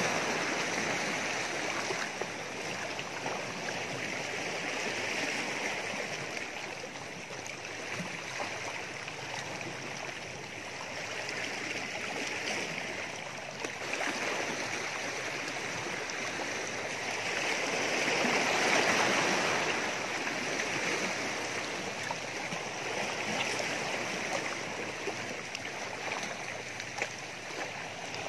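Small sea waves washing and splashing against shoreline rocks, a steady rushing sound that swells and eases every several seconds.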